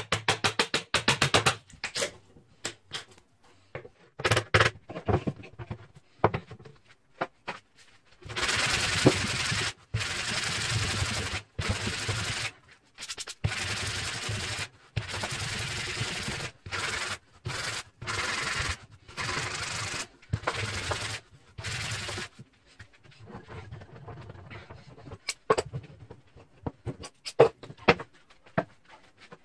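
Abrasive rubbing strokes on a workpiece. A quick run of short strokes comes first, then a few scattered ones. From about eight seconds in come long strokes of a second or two each with brief pauses, stopping about 22 seconds in, followed by faint scattered knocks.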